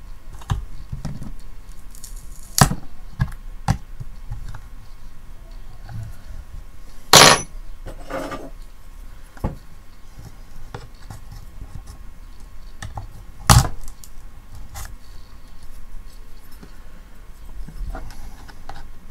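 Small metal tool scraping, clicking and knocking against the plastic housing and parts of a portable radio as a glued-in antenna is pried loose. Scattered sharp clicks, the loudest about 2.5, 7 and 13.5 seconds in, the one at 7 seconds followed by a brief rattle.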